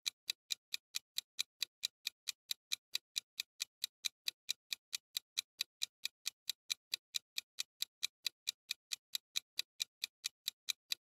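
Clock-ticking sound effect under a quiz's answer countdown timer: even, sharp ticks at about four a second, marking the seconds left to answer.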